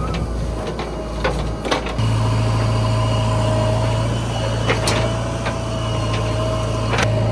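Diesel engine of heavy earthmoving machinery running steadily with a steady whine. The hum steps louder about two seconds in, and a few sharp knocks or clanks come through.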